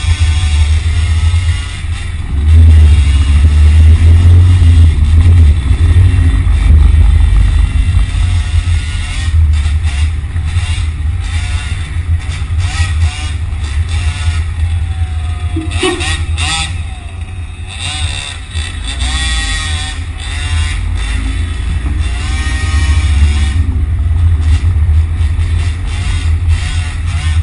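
Electric RC car motor whining, its pitch rising and falling again and again with the throttle, over a constant deep rumble.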